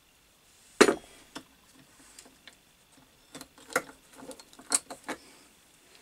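Metal clinks and knocks of a pole-saw bar and chain being handled: one sharp knock about a second in, then a run of light clicks and rattles.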